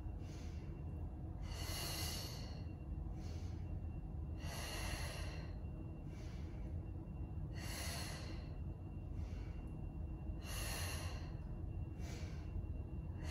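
A woman breathing audibly through a Pilates exercise, with a paced breath about every one to two seconds and the exhale timed to the effort of the lift. A low steady hum runs underneath.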